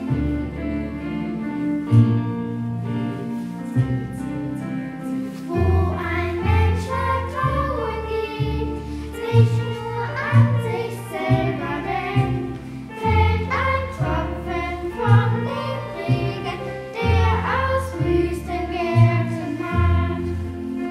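Children's choir singing a hymn to chord accompaniment played on the Audanika tablet app. The accompaniment's sustained chords and pulsing bass play alone for the first few seconds, and the voices come in about five seconds in.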